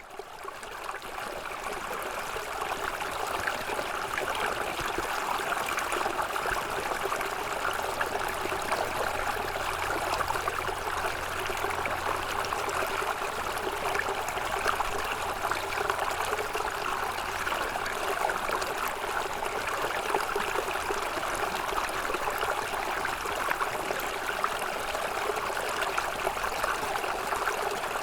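Small snowmelt-fed stream running, a steady rush and trickle of flowing water that fades in over the first couple of seconds.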